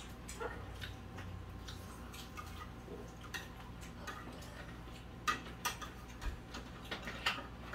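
Scattered light clinks and taps of eating utensils against plates and bowls, about nine short ticks over a faint steady hum.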